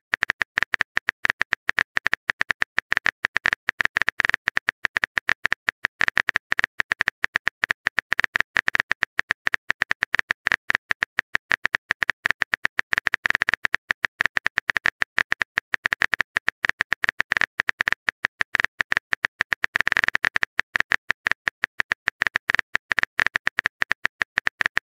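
Phone keyboard typing sound effect: rapid, even key clicks, several a second, as a message is typed out letter by letter.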